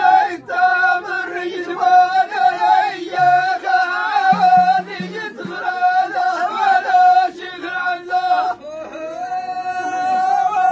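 Ahidous chant: a chorus of men singing together in phrases, closing on a long held note near the end.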